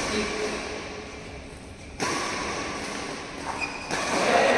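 Sounds of badminton play in a large, echoing indoor hall: a sharp hit or knock at the start, then a sudden rise in the background noise about two seconds in. Voices in the hall get louder near the end.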